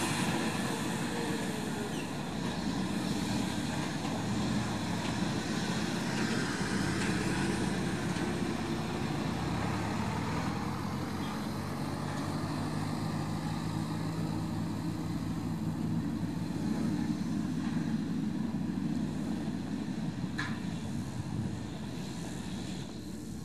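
Heavy diesel engines of a nine-axle Liebherr LTM 11200-9.1 mobile crane and a semi-trailer truck running at low speed, a steady low drone that holds a steadier engine note for several seconds in the middle.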